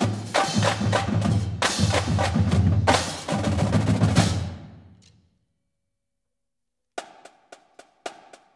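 Marching drumline with bass drums and tenor drums playing a loud, dense passage. About four seconds in it stops and rings away to silence. After nearly two seconds of silence, sparse, sharp separate hits start near the end.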